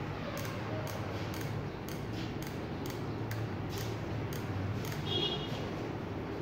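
Trigger mechanism of an automatic solder-feed soldering iron clicking about twice a second, a dozen or so sharp clicks, as it pushes solder wire onto the end of a lithium-ion cell. A brief high squeak about five seconds in, over a steady low hum.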